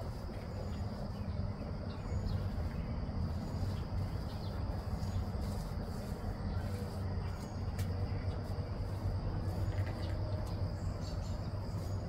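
Steady outdoor background: a low hum with a constant thin high-pitched tone over it, and a few faint ticks.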